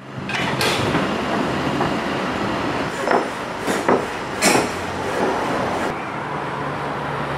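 Construction site noise: a diesel machine engine running steadily, with three short, sharp metal scrapes and clanks about three to four and a half seconds in.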